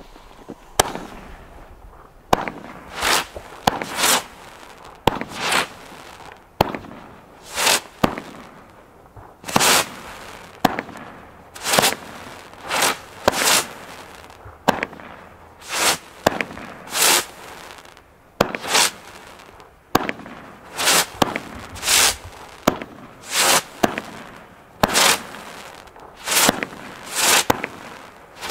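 Big Helios consumer fireworks battery (cake) firing shot after shot, about one to two a second. Sharp pops alternate with short, softer bursts as the shells break into stars. It is a battery called quiet, without heavy bangs.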